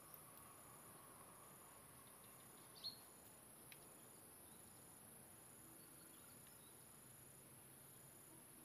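Faint insect chorus: a steady high buzz with a softer chirp repeating a little more than once a second. One short high sound stands out about three seconds in.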